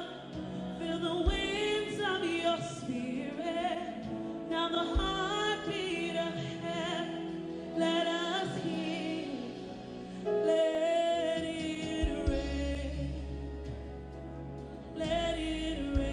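Live gospel worship song: a woman sings the lead melody with vibrato, accompanied by keyboards and sustained bass notes.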